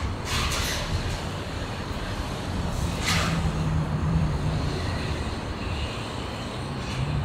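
Steady low engine rumble, with two brief hissing swells, one shortly after the start and one about three seconds in.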